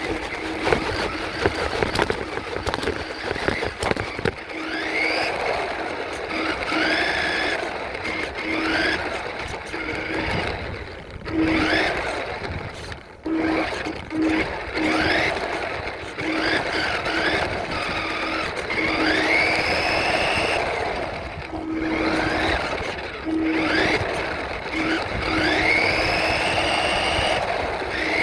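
Radio-controlled truck's motor whining, rising in pitch again and again in short bursts as the truck is throttled up over and over.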